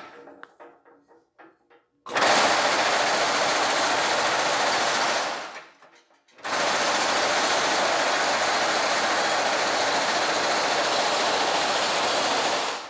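Reciprocating hammer rapidly striking woven stainless steel mesh between its dies, raising the center section of a grille. It runs in two bursts, about three seconds and then about six seconds, with a short pause between. A few light knocks come before the first burst.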